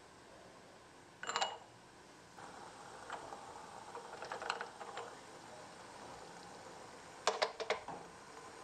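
Lid of a miniature enamelled pot clinking against its rim as it is handled and lifted. There is one ringing clink about a second in, light clicks in the middle, and a quick cluster of sharp clinks near the end. A faint steady hiss comes in about two seconds in.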